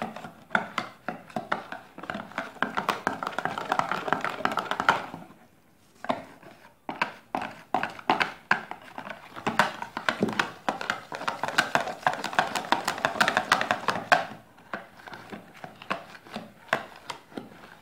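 Wire balloon whisk beating a flour-and-water batter in a plastic container: quick, repeated clicking and scraping strokes of the wires against the tub. The strokes stop for about a second a third of the way in, then carry on.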